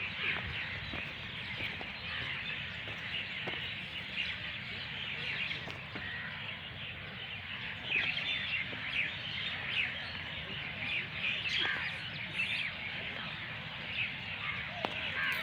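Many birds chirping at once in a dense, continuous chorus of short high calls, over a low steady rumble.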